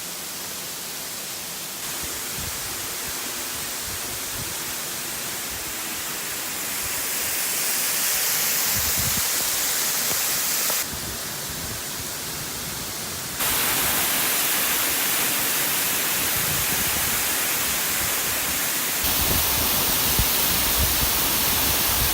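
Rainbow Falls' water pouring and splashing, a steady rushing noise. The level and tone jump several times, at about 2, 11, 13 and 19 seconds, as it shifts between closer and farther takes.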